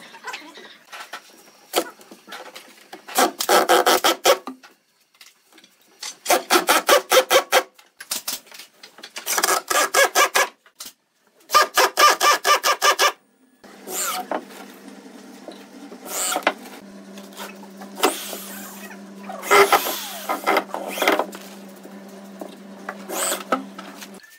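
Power tools at work on wood: four short bursts of rapid rattling, then a steady motor running for the last ten seconds with the whir rising and falling as it cuts or sands.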